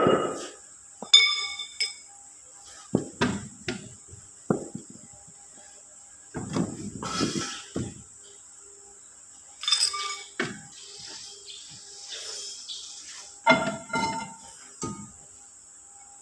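Knocks and scraping as a heavy wooden block is set and shifted on concrete under a pickup's rear axle, mixed with sharp metal clinks, one ringing about a second in and a cluster near the end. A steady high insect whine sits behind it.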